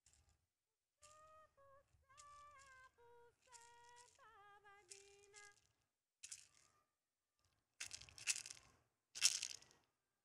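A woman softly humming a slow wordless melody that drifts down in pitch, followed by a few loud, short noisy sounds near the end.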